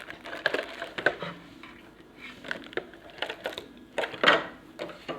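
Hands going through a box of small accessories and packaging: a string of clicks, knocks and rustles, with a louder rustle about four seconds in.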